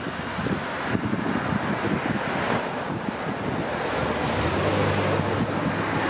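Passenger cars passing close on a street, with tyre and engine noise swelling as a sedan goes by about four seconds in and another car comes up behind it. Wind buffets the microphone.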